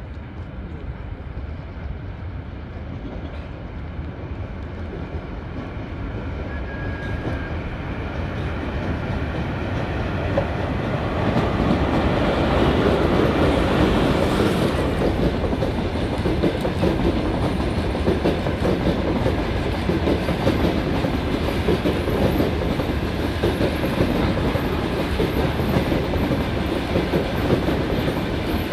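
ChS7 electric locomotive and its long-distance passenger coaches approaching and passing close by. A rumble grows louder over the first ten seconds or so, then settles into the steady rolling and clatter of the coaches' wheels over the rail joints.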